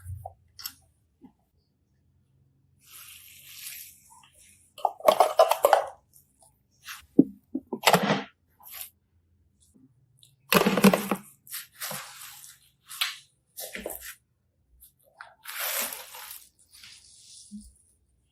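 Slime being squished and pressed, giving irregular wet, crackling squelches with short pauses between; the loudest come about 5, 8 and 11 seconds in.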